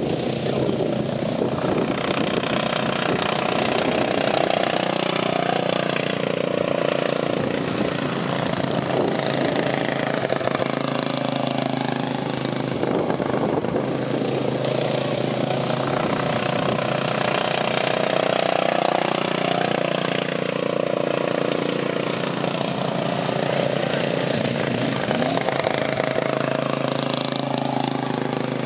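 Racing lawn mower's engine running hard, its pitch rising and falling again and again as the throttle opens and eases.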